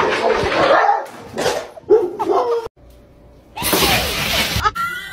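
Dog barking and yelping in short bursts, then a near-silent pause of about a second, followed by a burst of loud rushing noise.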